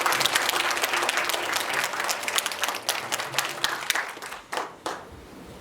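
Audience applauding; the clapping thins out and stops about five seconds in, ending with a few last single claps.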